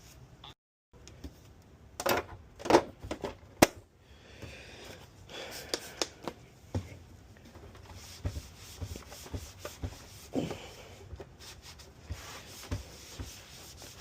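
Wiping and rubbing on the PS5's plastic casing during cleanup, with irregular sharp clicks and knocks of the plastic being handled, loudest between about two and four seconds in.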